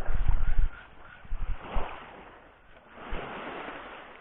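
Wind buffeting the microphone, strongest in the first second, over the wash of small waves on a beach, which swells up about two seconds in and again near the end.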